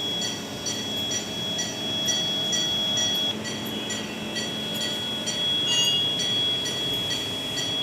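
NICU ventilator and monitoring equipment: a steady high-pitched electronic tone with short beeps repeating about twice a second.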